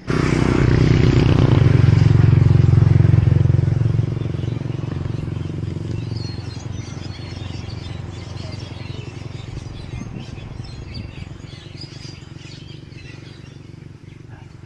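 A motorcycle engine passes close by, loud for the first few seconds, then fades away. Birds chirp faintly underneath as it fades.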